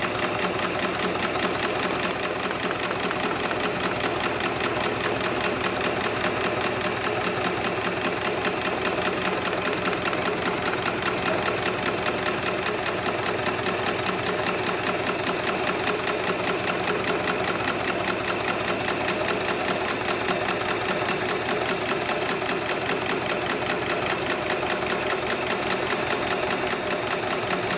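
HIGHTEX #7273PLK programmable automatic pattern sewing machine stitching a heavy camouflage military belt: the needle runs at a fast, steady rate of stitches, with a steady high-pitched whine over it.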